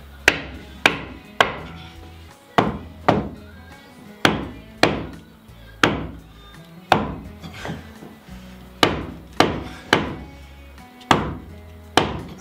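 Small hammer striking a wooden block to drive a tight-fitting timber post into position: repeated sharp blows, often two or three in quick succession, each ringing briefly. The post is jammed tight and has to be driven every inch.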